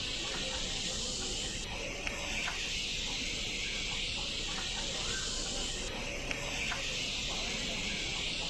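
Automatic rotating-drum stir-fry machine cooking noodles: a steady sizzling hiss, with a few light clicks and knocks.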